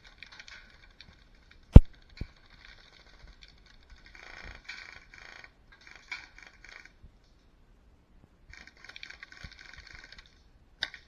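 Rustling and rattling of a player's gear in stop-start patches, with a single sharp crack about two seconds in, followed shortly by a fainter one.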